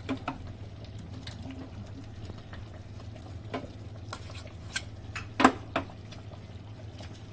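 Metal spoon tapping and scraping against a small steel tadka pan as lumps of butter are knocked off into it: a few scattered light clinks, the sharpest a little past the middle, over a steady low hum.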